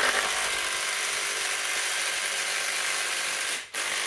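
Cordless impact wrench hammering on a 32 mm socket, running the motorcycle's gearbox sprocket nut down tight. It runs steadily, breaks off briefly near the end, then starts again.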